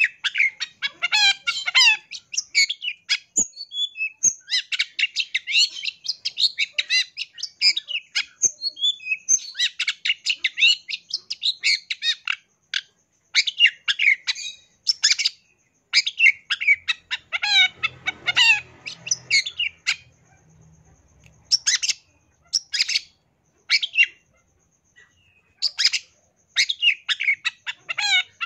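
Long-tailed shrike singing a rapid, varied chattering song stuffed with mimicked calls of other birds. The notes run densely through the first half, then break into shorter bursts with pauses between them.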